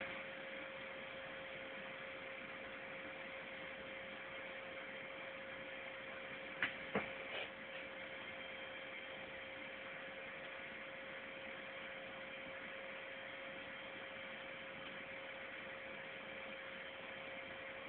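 Faint steady electrical hum: an even hiss with one thin steady tone, broken by two sharp clicks close together about seven seconds in.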